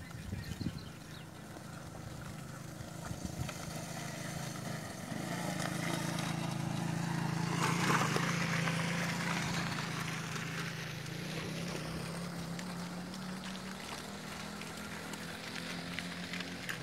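Motor vehicle engine running with a steady low drone, growing louder to its peak about halfway through and then slowly fading.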